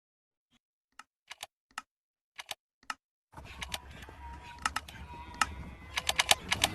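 A series of short, sharp clicks at irregular intervals. The first few sound out of silence, then more follow over faint background noise from about three seconds in.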